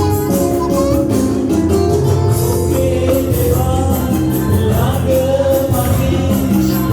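Loud music: a sung song over a steady bass line and a regular beat with tambourine-like percussion.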